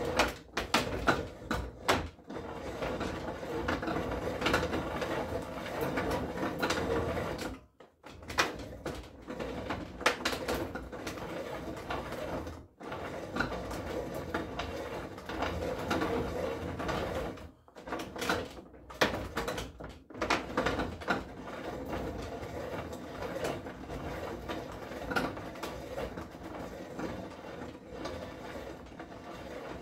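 Hand-worked reaming bench: a reamer turning inside a steel rifle barrel bore, with a continuous metallic scraping and rattling that pauses briefly a few times.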